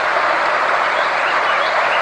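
Steady, unchanging hiss-like noise from a sound-therapy track, strongest in the middle range, with a few faint short chirps high above it.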